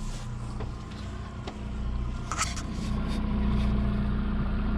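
Boat's outboard motor running steadily at low trolling speed, an even low hum, with a few short light clicks over it.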